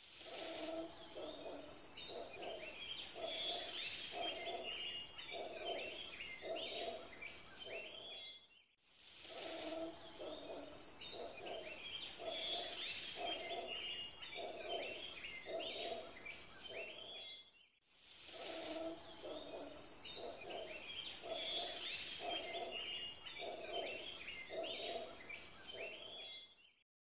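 Birds chirping and calling over an evenly repeating lower call, as a short nature-sound track: the same stretch plays three times, each time fading out into a brief silence.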